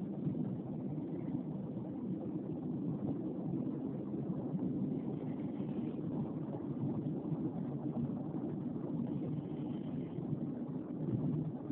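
Snoring: a low, steady rumbling with no clear pauses between breaths.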